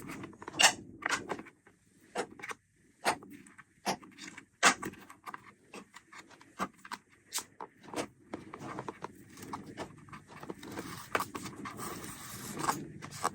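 Irregular taps, clicks and light rustling of a keyboard's cardboard box and plastic wrapping being handled and opened.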